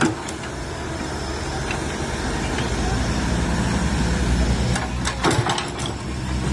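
Komatsu PC130 excavator's diesel engine running steadily and growing gradually louder, with a few sharp knocks at the start and about five seconds in.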